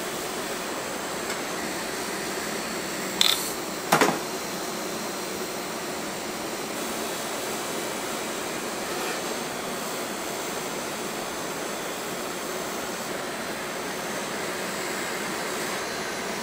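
Cotton candy machine running with a steady whir from its spinning head. Two sharp knocks stand out, a little over three seconds in and again about half a second later.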